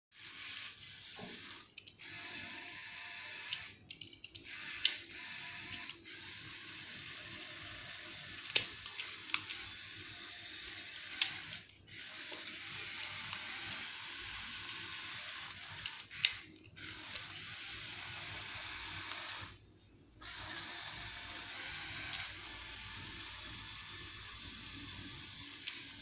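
Electric motors and plastic gears of a Lego remote-control car whirring as it drives over tile, stopping briefly about five times, with a few sharp clicks.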